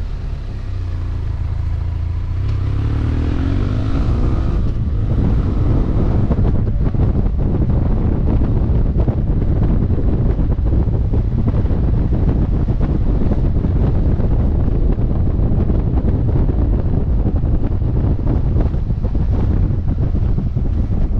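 BMW F800GT parallel-twin motorcycle engine pulling, its revs rising for a couple of seconds about three seconds in, then heavy wind rush on the microphone over the engine as the bike gathers speed.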